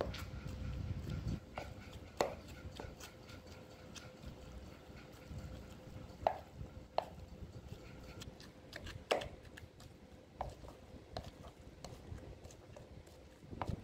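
Wooden pestle pounding a paste in a mortar: irregular knocks and thuds, a sharp one every second or so, with a duller low rumble of pounding near the start.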